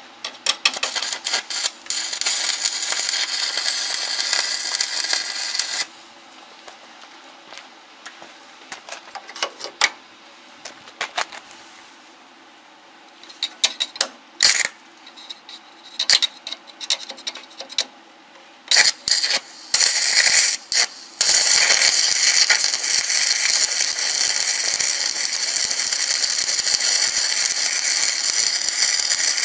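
Stick (arc) welding on steel. The arc crackles steadily for about four seconds, then gives a run of short strikes and sputters, then crackles steadily again through the last eight seconds or so.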